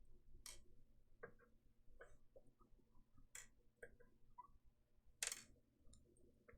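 Faint clicks and taps of small parts being handled on a laptop, with three short scratchy sounds, the loudest about five seconds in.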